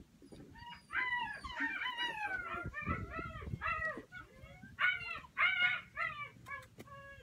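Nine-week-old puppy giving a rapid string of short, high-pitched whining cries, each rising and then falling in pitch. The loudest cries come about five seconds in.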